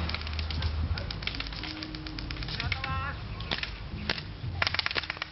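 Airsoft guns firing: scattered sharp snapping shots, then a quick burst of rapid shots a little before the end.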